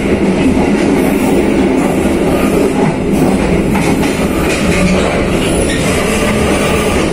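Passenger train running on the track, heard from inside a coach's vestibule by the door: a loud, steady noise of wheels on rail and car body.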